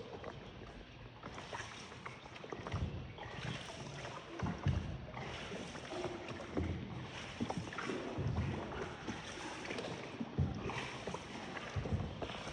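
Small boat moving on water: water noise with irregular low knocks and splashes, and wind on the microphone.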